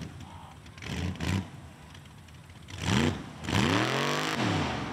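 Mud bog truck's engine revving: two short blips about a second in, another near three seconds, then a longer rev that climbs and falls back, with a loud rushing noise over it.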